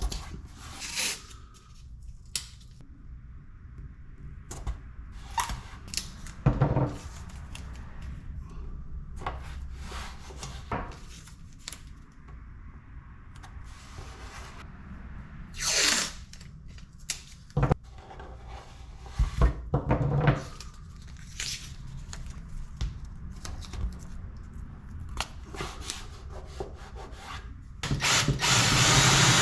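Masking tape ripped off the roll in short tears and rubbed down onto fiberglass. Near the end a power drill starts and runs steadily, about to bore the hole for the plug.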